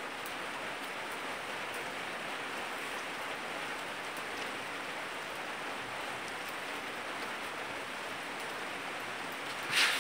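Steady, even hiss of rain falling outside, with a short brighter rustle near the end.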